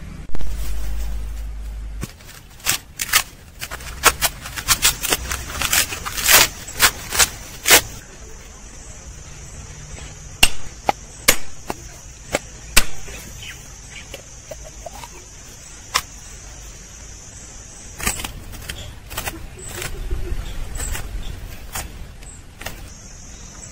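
Sharp knocks of a machete-type blade striking a whole husked coconut to crack its shell, in irregular runs of strikes. A steady high-pitched whine runs behind for much of it.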